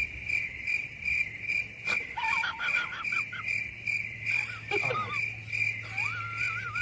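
Crickets chirping in a steady, even pulse, about two to three chirps a second. Short warbling whistles come over it about two seconds in, and a longer wavering whistle near the end.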